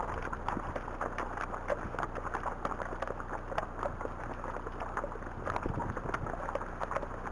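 Hooves of a ridden Arabian horse and the horses around it in snow, heard from the rider's helmet camera as a dense, irregular run of clicks and knocks over a steady low rumble.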